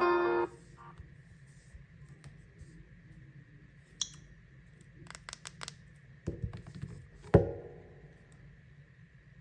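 A melodic phone ringtone cuts off about half a second in. Scattered clicks, taps and handling noises follow, then a sharp knock with a short ring a little past seven seconds in, the loudest sound.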